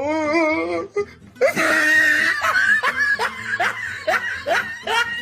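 Comedy laughter sound effect: a wavering, held vocal tone in the first second, then a quick run of rising 'ha-ha' laughs, about three a second.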